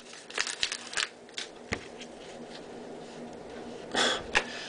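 Baseball card pack wrapper crinkling as it is torn open and pulled off: a flurry of crackles in the first second, a few scattered ones after, then two short rustles near the end as the cards are handled.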